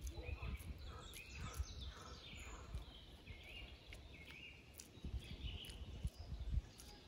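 Forest songbirds chirping and calling over and over in short gliding notes, over a low rumble, with a few dull thumps in the second half.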